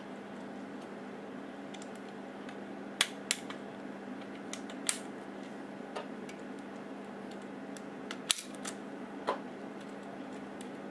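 Plastic LEGO wheels and bricks being handled and pressed onto a truck chassis: scattered sharp clicks, the loudest about three seconds in and just after eight seconds, over a steady low hum.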